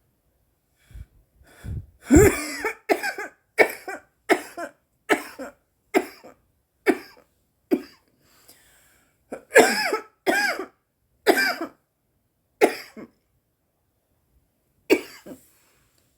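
A woman coughing hard from cannabis smoke: a run of short coughs, a brief pause, a second run, then a couple of last coughs near the end.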